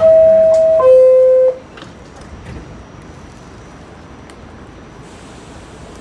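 R46 subway car's door chime: two loud steady tones, the second lower than the first, together lasting about a second and a half, warning that the doors are about to close. After it a steady background rumble from the subway car.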